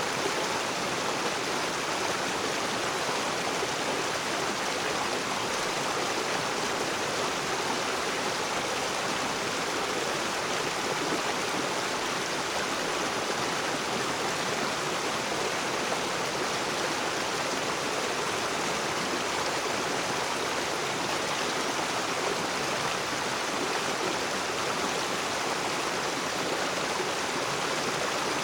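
Rocky river running steadily over stones: a continuous, even rush of flowing water.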